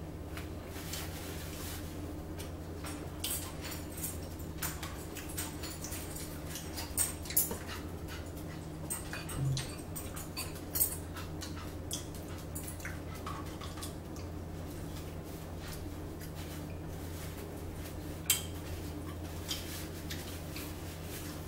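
Close-up eating sounds: scattered short wet smacks and clicks of chewing, with a few sharper clicks now and then, over a steady low hum.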